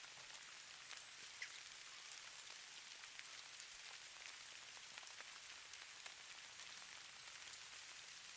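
Falling snow pattering lightly on surfaces: a faint, steady high hiss with many scattered soft ticks, much like light rain.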